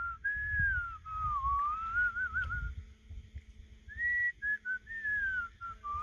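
A person whistling a slow, wandering tune, a single clear note sliding up and down, with a brief warble partway through and a few short breaks near the end, over a low rumble.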